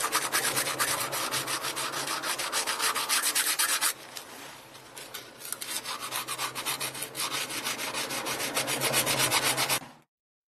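A small hand tool scraping quickly back and forth over the threads of a brass water-pipe fitting in fast, even strokes. The strokes turn quieter for a second or so partway through, then carry on and stop shortly before the end.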